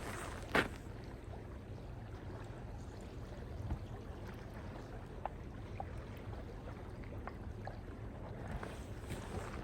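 Steady low background noise with one sharp knock about half a second in and a few faint ticks.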